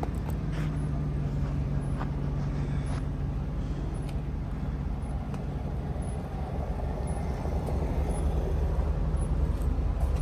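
Vehicle engine running with a steady low hum, heard from inside the cab.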